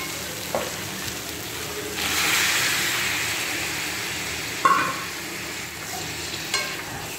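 Onions and ginger-garlic masala paste sizzling in a frying pan while a spatula stirs them. The sizzle swells about two seconds in and slowly eases off. The spatula knocks against the pan a few times, loudest a little before five seconds in.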